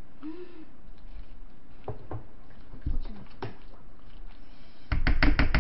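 A spoon scrapes and taps as it scoops gochujang, with a few soft clicks. Near the end comes rapid, regular clacking of a long spoon against a large mixing bowl as a bowl of bibimbap is stirred and mixed.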